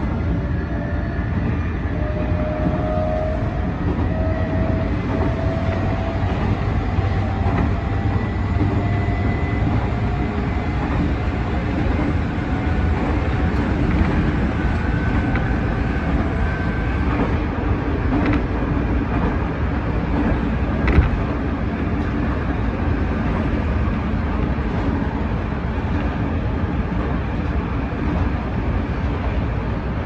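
Nankai Koya Line electric train running on the rails, heard from just behind the driver's cab: a steady wheel-and-rail rumble with a faint motor whine that rises in pitch over the first several seconds. A single sharp knock about two-thirds of the way through.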